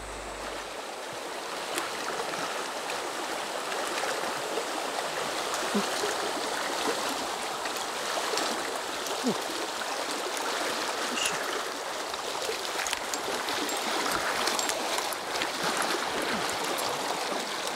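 Shallow, fast mountain stream rushing steadily over a stony bed, running high after days of rain, with scattered small ticks and splashes.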